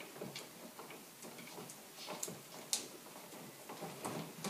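Faint, scattered small clicks and ticks of hand tools and old wires being handled as knob-and-tube wiring connections are taken apart, with two sharper clicks a little past the middle.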